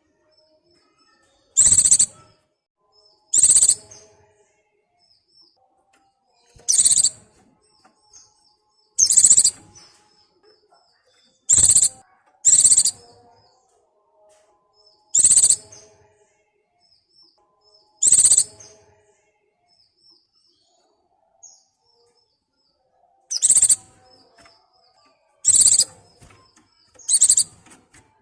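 White-eye (pleci) in breeding condition calling for a mate: about eleven loud, short, high-pitched calls at uneven gaps of one to five seconds, with fainter short chirps in between.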